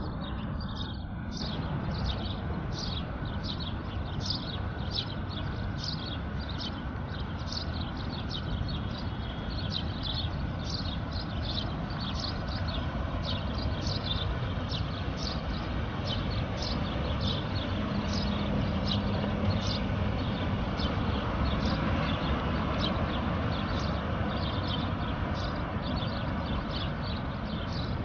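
Background hip-hop track without vocals: a steady beat with crisp hi-hat ticks about twice a second over a low, full backing.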